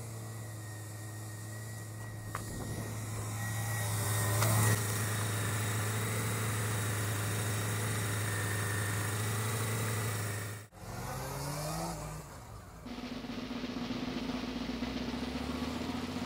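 Honda CB400 motorcycle engine running with a steady low note that builds louder over the first few seconds and then holds. The sound breaks off suddenly about ten seconds in. The revs then climb in quick rising steps, followed by a steadier, higher engine note.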